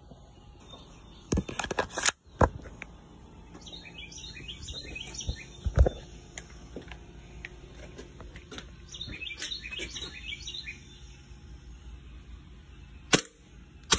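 Small birds chirping in the background. A cluster of sharp clicks comes about two seconds in as the green-gas airsoft pistol is loaded, a single thump follows near six seconds, and one sharp crack near the end is the pistol's first shot.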